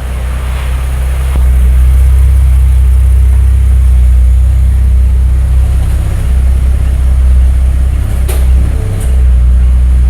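2015 Ford Mustang's 3.7-litre V6 running through its stock exhaust, a steady deep rumble that swells over the first second or so and then holds even. A couple of brief clicks near the end.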